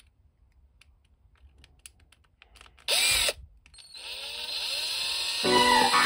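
Power drill with a 3.2 mm twist bit drilling slowly into a small plastic toy part. A short loud burst comes about three seconds in, then the drill runs steadily from about four seconds, growing louder.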